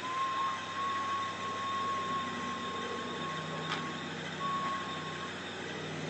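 A steady high-pitched tone holds for about four seconds while the CB radio is transmitting into the antenna beside the fluorescent tubes. It breaks off and comes back for about a second, with a single sharp crack just before the break. A vehicle engine idles underneath.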